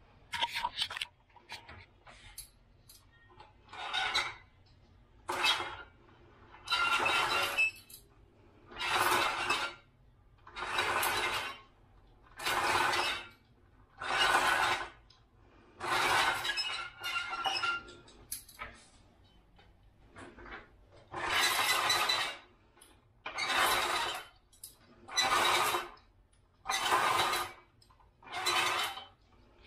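Plastic bead chain of a zebra roller blind pulled hand over hand, rattling through the blind's chain clutch in a burst with each pull, about one pull every two seconds with a short pause about two-thirds of the way through.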